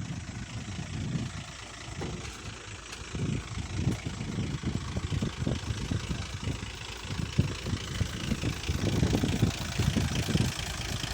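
Hitachi excavator's diesel engine running, its low, pulsing sound rising and falling in level.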